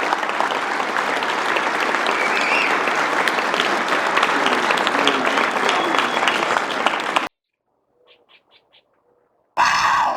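Crowd applauding, a dense patter of many hands clapping, which cuts off abruptly about seven seconds in. Just before the end, a loud pitched sound starts suddenly.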